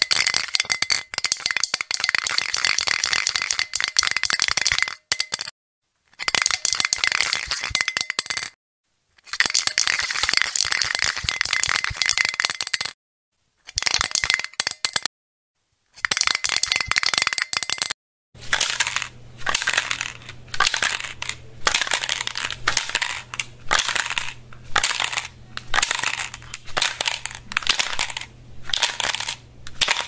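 Aerosol can spraying in a series of separate hisses, several seconds each with short silences between. About two-thirds of the way through, a different recording begins: a run of short, quick bursts over a steady low hum.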